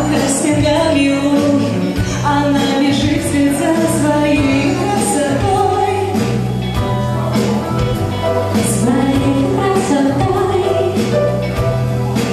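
Live pop song: female lead vocals sung into microphones over a band with keyboard.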